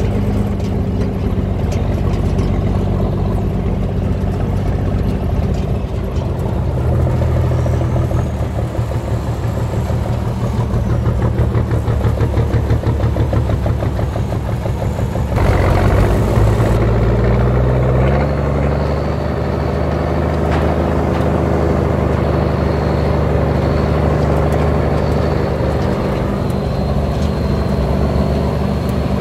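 M35A2 army truck's inline-six multifuel diesel engine running steadily, heard close from on top of the truck. About halfway through it gets louder for a couple of seconds, then settles to a lower, even note.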